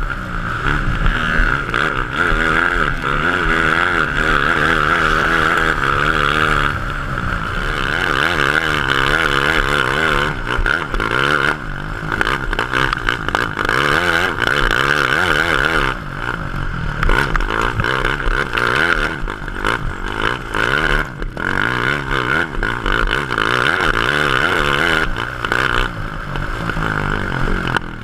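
2007 Honda CRF450 single-cylinder four-stroke engine driving a grass racing kart flat out, its pitch rising and falling again and again as the driver accelerates out of corners and lifts into them.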